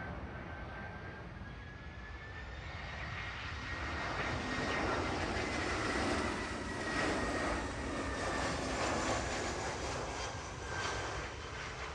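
Airbus A320-214's CFM56 turbofan engines on final approach as the jet passes low overhead: a steady jet noise with a thin whine that swells over a few seconds, peaks around the middle and then eases as the aircraft moves away.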